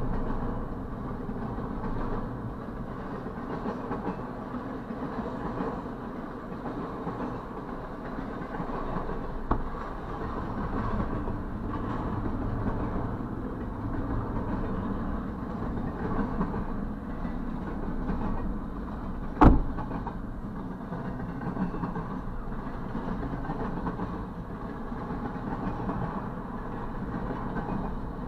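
Double-stack intermodal freight cars rolling past, a steady rumble of steel wheels on rail. There is a sharp knock about two-thirds of the way through and a smaller one about a third of the way in.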